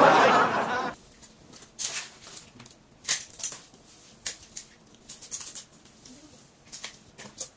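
A loud burst of laughter in the first second, then scattered crinkles and clicks of eating: plastic-gloved hands, spoons and tongs handling food on plates and in foil trays.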